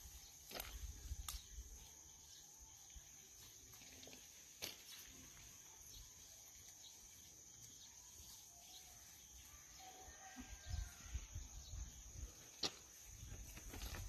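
Faint outdoor ambience with a steady high-pitched drone. There are irregular low rumbles near the start and again from about ten seconds in, and a few light clicks.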